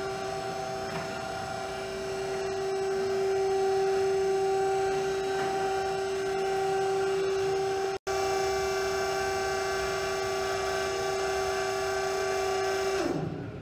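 Box dumper's 2 hp electric hydraulic power unit, motor and pump, running with a steady hum while the dual cylinders tilt the hopper. Near the end it shuts off and its pitch drops as it spins down.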